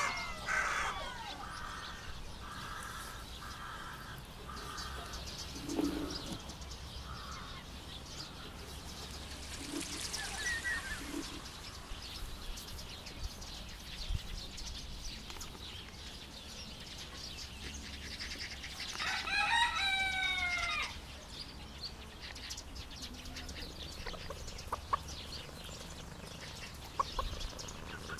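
Hens clucking: a run of short, evenly spaced clucks in the first few seconds, then scattered calls, and one longer, wavering call about twenty seconds in.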